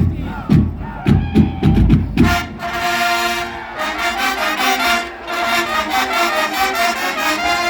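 Marching band playing: a run of heavy drum hits over the first two seconds, then the brass section comes in with sustained chords.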